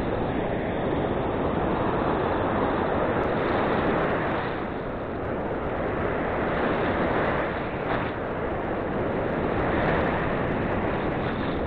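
Surf breaking on the shore, a dense rushing wash that swells and eases every few seconds, with wind on the microphone.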